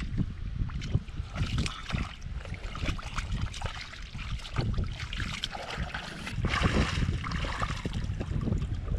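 Hands squelching and splashing through thick mud and shallow muddy water, a run of irregular wet slaps and sucks, with wind rumbling on the microphone throughout.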